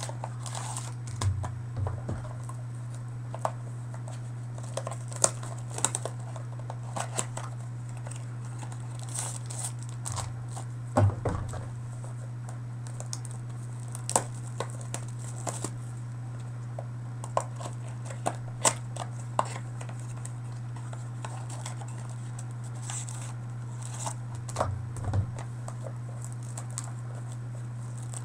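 Trading card box and packs being unwrapped by hand: scattered crinkling and tearing of wrapper and cardboard, with light taps and clicks of handling. A steady low hum runs underneath.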